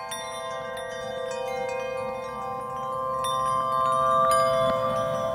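Wind chimes tinkling over a bed of held ringing tones, a soundtrack of chime music that grows gradually louder.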